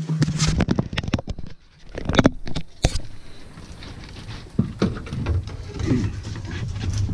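Irregular knocks, slaps and thumps on a boat's floor as a freshly landed flathead catfish is handled and laid down on deck, with one sharp knock about three seconds in.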